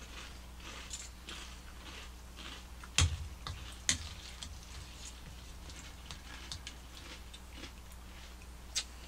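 Cereal being chewed and crunched, with spoons clicking against bowls. There are sharper clicks about three and four seconds in and again near the end.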